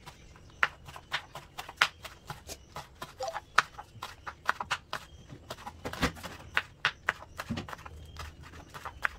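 Kitchen knife slicing green chillies on a wooden chopping board: an uneven run of sharp knocks of the blade on the board, several a second.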